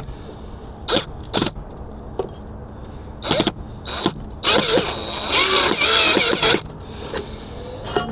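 Cordless drill with a Phillips bit driving a screw in several short trigger bursts, the motor speeding up and slowing down with each one, with a longer run in the middle. The bit is skipping in the screw head, which the owner fears might strip the screw.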